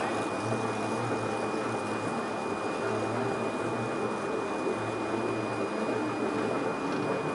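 Moving walkway running with a steady low mechanical hum, over the ventilation hiss of a large terminal hall. A faint steady high whine sits on top.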